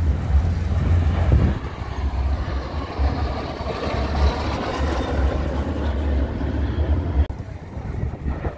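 Jet engine noise from two MiG-15-type jet fighters flying past in formation: a steady, heavy rumble with a faint whine that rises and falls near the middle. The sound changes abruptly about seven seconds in.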